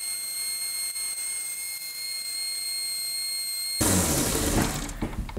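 Small benchtop belt grinder running with a steady high-pitched whine while a steel hatchet edge is ground on the belt; nearly four seconds in, the whine stops and a louder rushing grind takes over, then fades.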